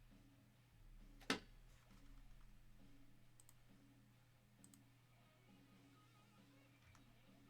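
Quiet room tone with a steady low hum, broken by one sharp click a little over a second in and a few faint ticks later.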